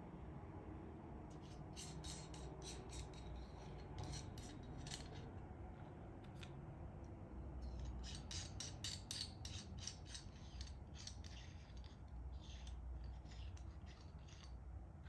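Packaging being handled in an unboxing: two spells of quick, crisp snips and crinkles, one starting about a second in and a longer one from about halfway through.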